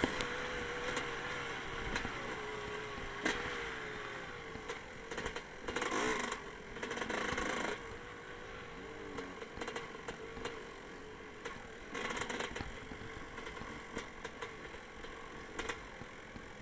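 Dirt bike engine running at a fairly steady, slightly wavering note while riding an off-road trail, with short louder rushes of noise about five to seven seconds in and again about twelve seconds in.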